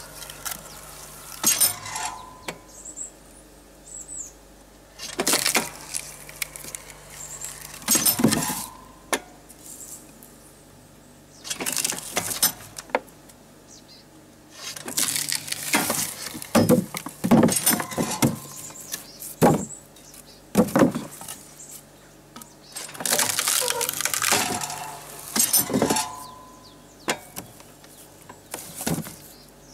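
Firewood logs cracking and splitting in a water-hydraulic wood splitter as the wedge forces them apart, with knocks of logs and split pieces being handled, about a dozen sudden bursts at uneven intervals. Several of the cracks carry a short squeal.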